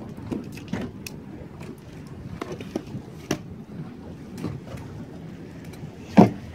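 Motorboat under way on choppy lake water: a steady rush of wind and water, with scattered knocks through it and one loud thud about six seconds in.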